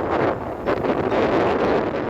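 Sea wind buffeting the microphone: a loud, rough, uneven rushing that dips briefly about half a second in.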